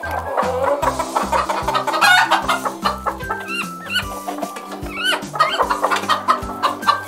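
Domestic chickens clucking, with chicks giving short, high, rising peeps, over background music with a steady repeating bass line.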